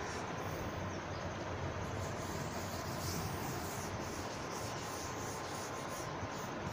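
Faint rubbing of a board duster wiping chalk off a chalkboard, over a steady background hiss.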